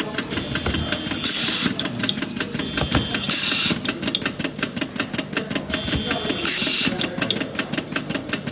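Handheld automatic screwdriver with an auto-feed screw system driving screws into a switch circuit board. Rapid, even clicking runs throughout. Three times, a thin whine is followed by a short burst of air hiss, about a second and a half in, at three and a half seconds and near seven seconds.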